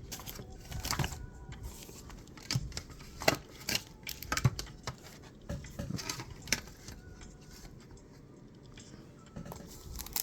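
Hands handling Pokémon trading cards and booster-pack packaging: irregular light clicks, taps and soft rustling of card and foil wrapper.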